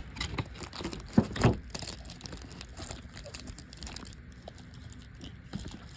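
Hands handling trading-card supplies and packaging: light handling noise with scattered clicks, two sharp taps a little over a second in.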